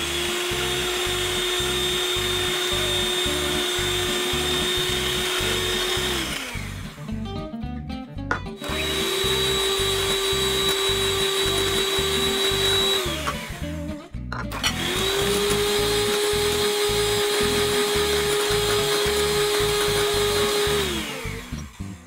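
Electric hand mixer whipping egg whites and sugar into meringue, a steady motor whine that stops twice, about six seconds in and again about thirteen seconds in, then starts again. Background music with a low, steady beat plays underneath.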